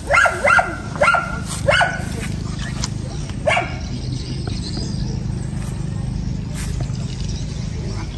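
A dog barking: four quick barks in the first two seconds and one more about three and a half seconds in.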